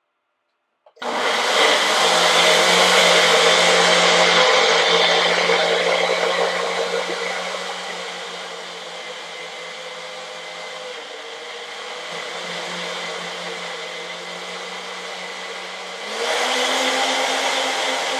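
Countertop personal blender puréeing whole strawberries: the motor starts about a second in and runs loud, easing after a few seconds as the load changes, then steps up again near the end.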